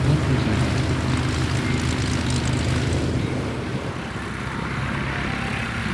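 Diamond DA40 Diamond Star light aircraft flying past, its piston engine and propeller droning steadily. The low engine tone weakens about halfway through, leaving a broader rushing noise.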